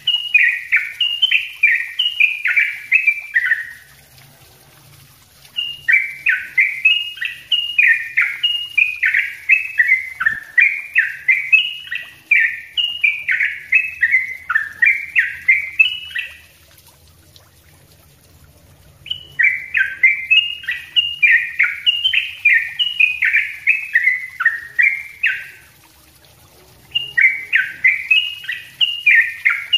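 Yellow-vented bulbul (trucukan) singing a fast, tightly packed run of repeated chattering notes, about two a second, in long bouts broken three times by pauses of about two seconds.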